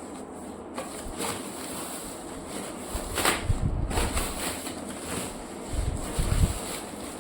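Handling noise while a boxed speaker is unpacked: low bumps and thumps and a brief swish, over a steady hiss.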